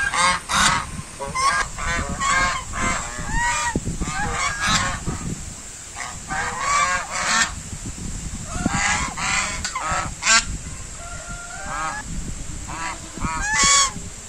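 A flock of white domestic geese honking, many calls overlapping in irregular bursts with short lulls between them, and one longer drawn-out call about two-thirds of the way through.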